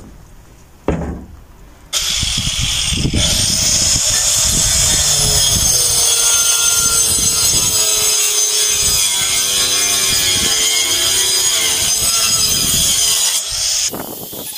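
A handheld power tool running continuously as it cuts into the old wooden plank wall of a barn, its motor pitch wavering as the load changes. It starts suddenly about two seconds in and stops shortly before the end.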